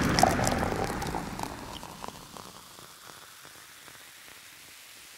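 Intro-animation sound effect: a noisy rush like rain or static that fades away over about three seconds, with scattered light clicks and ticks, leaving a faint hiss.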